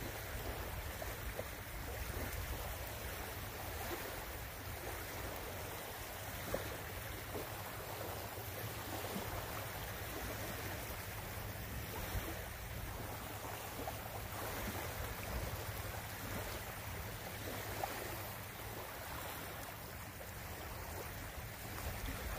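Small waves lapping steadily on a sandy lakeshore, with a low rumble of wind on the microphone.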